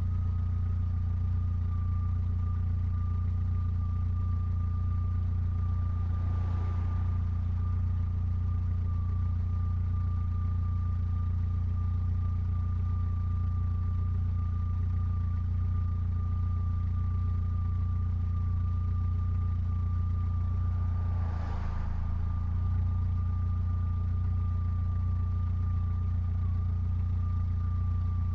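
Mitsubishi Lancer Evolution X's turbocharged 2.0-litre four-cylinder running steadily at an even engine speed, with a low hum and a thin, steady high whine over it. Two brief swells of noise come about six seconds in and again near twenty-one seconds.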